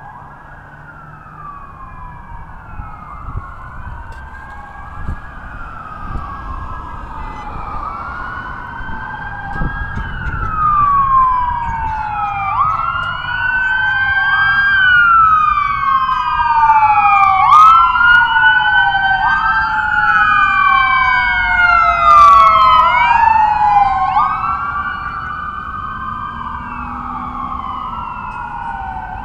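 Sirens of fire apparatus, a fire engine and an ambulance, running on an emergency call: several wails overlapping in rising and falling sweeps. They grow louder to a peak past the middle as the vehicles approach and pass, then fade.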